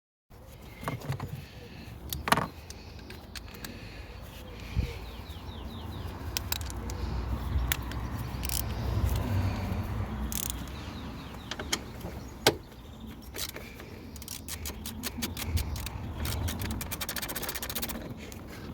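Socket wrench at work on 10 mm bolts in a van's engine bay: scattered metal clicks and clinks of the tool and sockets, with a quick run of ratchet clicks near the end.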